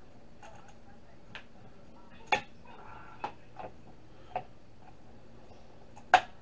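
Screwdriver working screws out of a Netgear switch's circuit board in its metal case: scattered sharp, light metallic clicks and taps at irregular intervals, the loudest about two seconds in and another just before the end.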